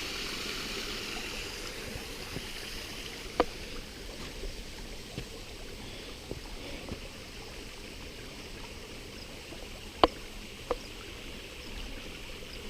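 Steady rushing of a river and waterfall pouring over rock. Three sharp knocks break through it, one early on and two close together later.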